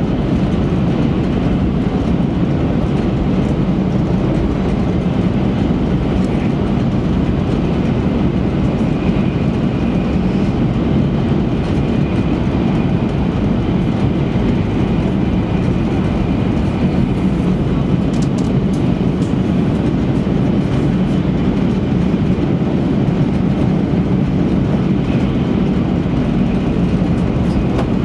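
Steady interior running noise of an E3-series Shinkansen at speed, heard inside the passenger cabin: an even low rumble of wheels and air, with a faint high whine in the middle.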